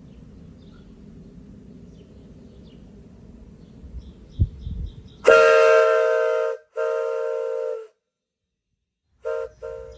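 Buckeye three-chime locomotive whistle blown on compressed air at about 125 psi: a loud, steady chord of several close tones starts suddenly about five seconds in and is cut off. A second long blast follows, then two short toots near the end. Before the whistle there is a low rumble and a thump.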